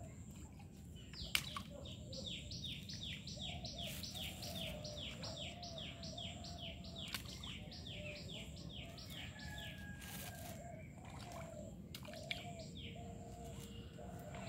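Birds calling in the open: one repeats a quick run of short, falling whistled notes, about three a second, through most of the time, over a lower wavering call and a steady outdoor background hum. Two brief sharp clicks, one about a second in and one near the end.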